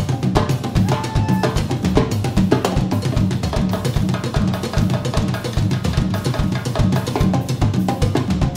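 Drum kit and hand percussion playing a fast, busy groove of dense, evenly repeating strikes, with a few short pitched notes sounding above the beat.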